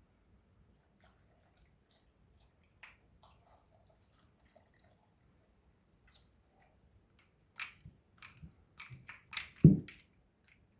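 A dog going after ice cubes: scattered small clicks and wet chewing sounds, then a quick run of crunchy clicks in the last few seconds and a loud thump near the end.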